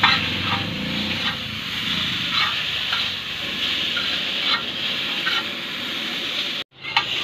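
Chow mein noodles sizzling on a large flat griddle while a metal spatula stirs and tosses them, with scattered clicks and scrapes of the spatula on the pan. The sound breaks off for a moment near the end.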